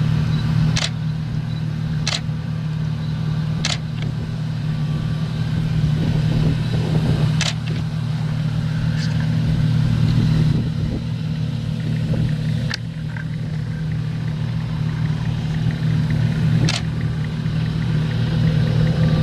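John Deere combine harvester and tractor engines running steadily in a low drone, with about six sharp clicks scattered through.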